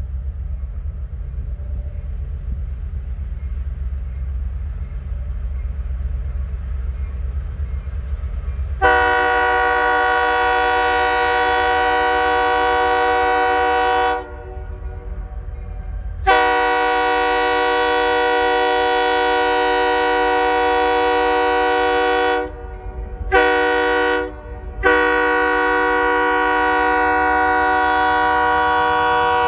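Diesel locomotive's multi-chime air horn sounding the grade-crossing signal as the train approaches the crossing: two long blasts, a short one, and a long one held on, after a low rumble in the first several seconds.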